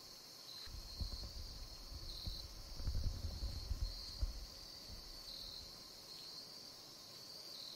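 Crickets and other insects chirping in a steady high trill, with louder pulses every second or so. Low rumbles and a few thumps come through in the first half.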